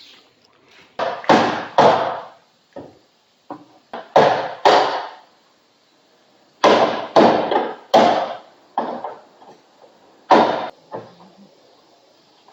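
Hammer blows on car body metal: about fifteen separate strikes in uneven groups of two to seven, with short pauses between the groups.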